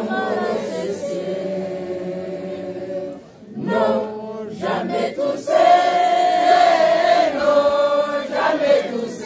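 Mixed choir of older women and men singing a Christian hymn together. The singing breaks briefly about three seconds in, then comes back louder with a long held note past the middle.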